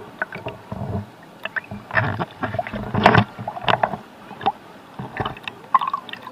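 Shallow seawater splashing and sloshing right at an action camera held at the water surface, with irregular splashes from hands moving in the water; the biggest splash comes about three seconds in.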